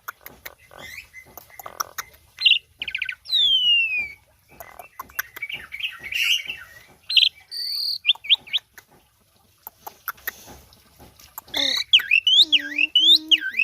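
Javan pied starling (jalak uren) singing a varied song of whistles, chirps and scattered clicks, with a long falling whistle about three seconds in and a run of quick rising-and-falling notes near the end.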